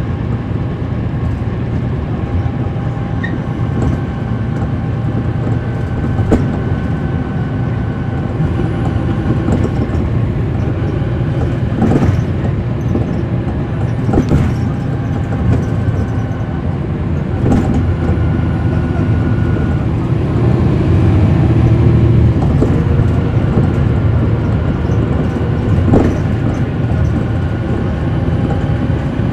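Cummins ISL9 diesel of a 2010 NABI 40-ft transit bus, heard from on board, running steadily under way with a few faint whining tones. Several sharp knocks and rattles come through, and the engine grows a little louder about two-thirds of the way in.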